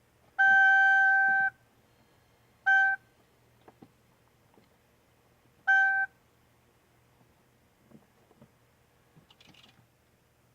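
Chevrolet Corvette Z06 dashboard warning chime: one long tone of about a second, then two short beeps a few seconds apart, with faint clicks in between.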